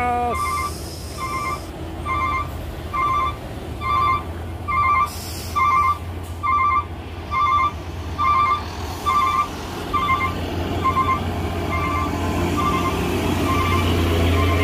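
A heavy truck's reversing alarm beeping about twice a second over the low drone of its diesel engine: the truck is in reverse. There are two short hisses of air early on and about five seconds in, and the beeps grow fainter after about ten seconds.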